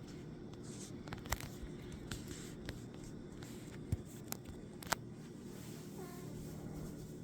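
A few sharp clicks and taps, scattered over several seconds, above a steady low room hum, with a faint short falling sound near the end.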